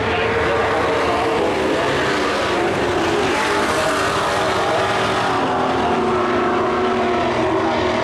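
Several dirt-track race trucks lapping the oval, their engines running together as a steady blend of overlapping engine notes that drift up and down in pitch.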